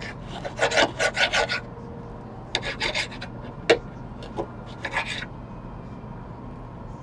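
Knife sawing back and forth through cooked steak, in two quick runs of scraping strokes in the first half, with one sharp click a little past halfway and a few single strokes after.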